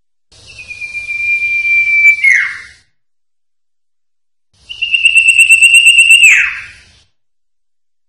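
Common iora (cipoh) singing two long, drawn-out whistles, each held on one steady pitch for about two seconds and then dropping in a quick downward slide; the second is a little higher and louder.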